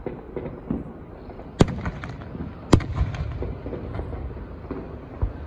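Aerial fireworks shells bursting: two loud sharp bangs a little over a second apart near the middle, among several fainter booms, with a low rumble trailing after them.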